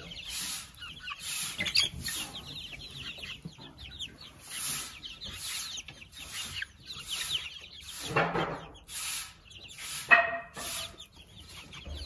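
A flock of young chicks peeping continuously in quick, high, falling chirps. Two louder calls stand out about eight and ten seconds in.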